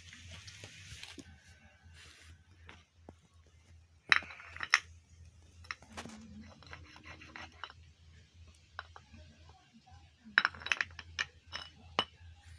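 Metal clinks and taps from parts being handled: a couple of sharp ones about four seconds in, one near six seconds, and a quick cluster near the end.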